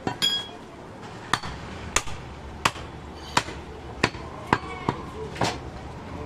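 Cleaver chopping through a goat rib rack on a wooden stump chopping block: about nine sharp chops, roughly one every two-thirds of a second.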